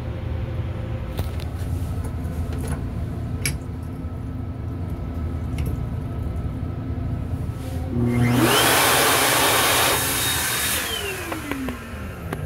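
Sink faucet in a railcar restroom running for about two and a half seconds. An electric water-pump whine rises quickly in pitch as the water starts and winds slowly down after it stops. A steady rumble from the moving train lies under it throughout.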